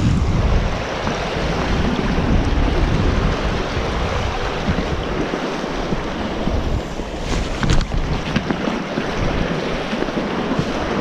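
Strong gusting wind buffeting the microphone, with sea surf washing and breaking around rocks. A few brief sharp knocks about two-thirds of the way through.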